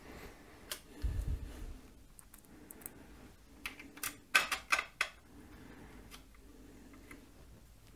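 Small metal parts and screws handled by hand while fitting a cover over a lathe's DRO scale read head: scattered light clicks and taps, bunched about halfway through, with one dull thump about a second in.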